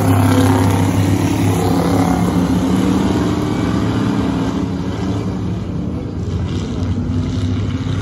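Engines of vintage dirt-track modified race cars running at racing speed, loudest as the 1937 Chevrolet-bodied #115 car passes close by in the first second, then easing a little as the pack runs on around the far turns.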